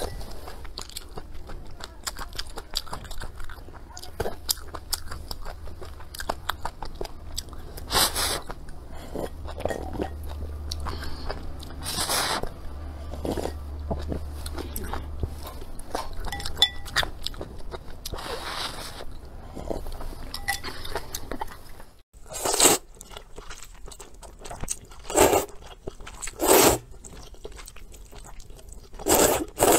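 Close-miked eating sounds: soup and noodles slurped from a bowl, with wet chewing and mouth clicks in between. Four loud slurps come in the last several seconds.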